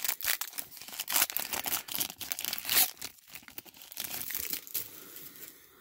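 Foil trading-card pack wrapper crinkling and tearing as it is pulled open by hand: a dense run of crackles, loudest in the first three seconds and fainter after.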